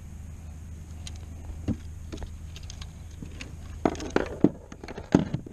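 Handling noise: scattered clicks, then a quick run of sharp clicks, knocks and rattles in the last two seconds, over a steady low rumble.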